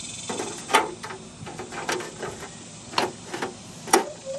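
Whirlybird turbine vent base and its flashing being shifted about on asphalt shingles: a run of irregular knocks and scrapes, with about six sharper clacks.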